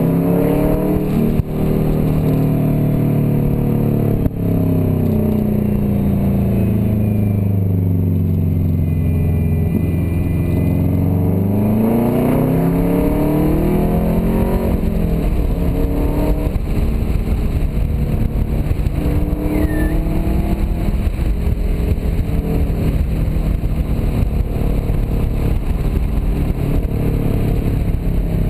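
Subaru Forester XT's turbocharged flat-four engine, heard from inside the cabin while driving. Its pitch falls over several seconds as the car slows, then rises again as it accelerates about twelve seconds in, and it runs on steadily under road noise.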